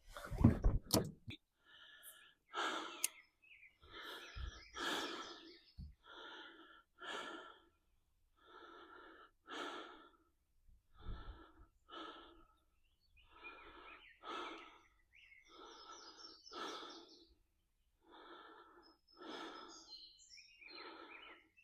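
A man's heavy, laboured breathing close to the microphone: a steady run of in-and-out breaths. The uploader puts it down to chest congestion from allergies and bronchitis. A few knocks come in the first second.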